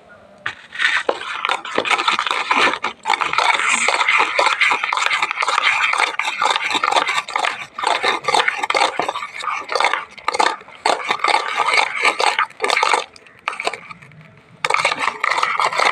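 A spoon stirring a thick, wet mixture of dosa batter, shampoo, salt and turmeric powder in a bowl: continuous wet scraping and stirring, pausing briefly near the end.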